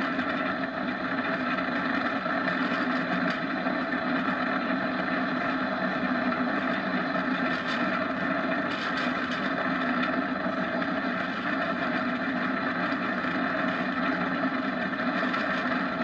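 Steady roar of a downhill race kart rolling fast on asphalt, heard from on board the kart.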